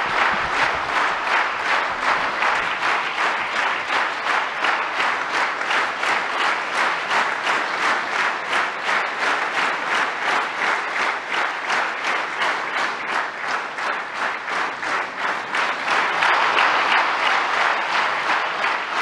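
Large audience applauding steadily, many people clapping at once.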